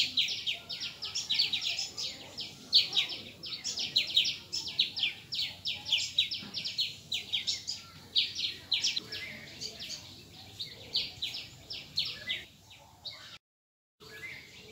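A rapid, unbroken series of sharp, high chirping calls, many a second, that weakens after about ten seconds and dies away; the sound cuts to silence for a moment near the end.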